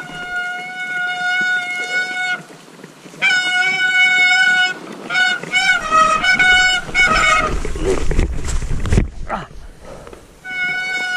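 Background music: a melody of long held notes on a single instrument, moving in steps from note to note. About eight seconds in, a burst of rumbling noise runs under it for a second or so.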